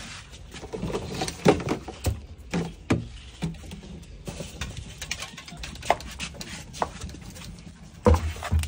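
Irregular clicks, knocks and a few dull thumps of things being handled and set down, with a heavier low thump near the end.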